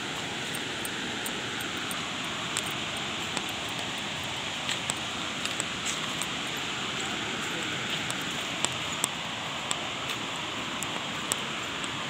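Steady rushing of a waterfall's falling water, with scattered short clicks.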